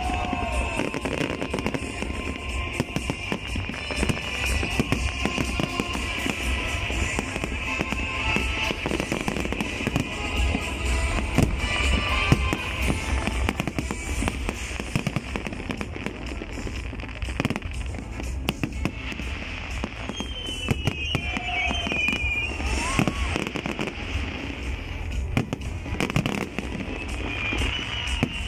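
Fireworks display: a continuous barrage of aerial shells bursting in quick succession, bangs and crackle overlapping with no pause.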